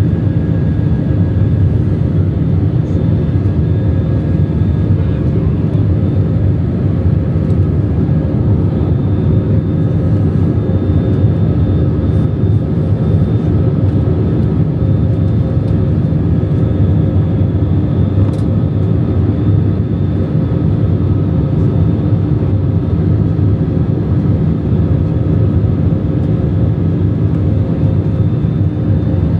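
Airbus A319-100 cabin noise in the climb after takeoff: a steady engine and airflow drone with a few faint steady tones running through it.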